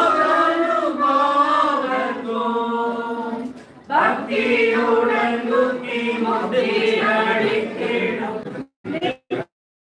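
A group of voices singing together in long held notes. Near the end the sound cuts out in several short breaks.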